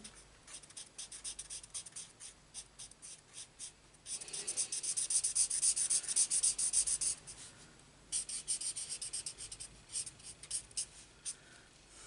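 Felt-tip marker scribbling on cardstock in quick, short back-and-forth strokes, colouring in a stamped image roughly. The strokes are densest and loudest from about four to seven seconds in and thin out near the end.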